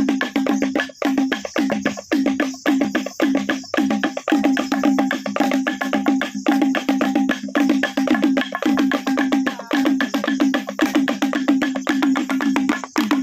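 Traditional T'boli instrumental music: a fast, unbroken stream of sharp, percussive notes, several a second, over a steady low drone.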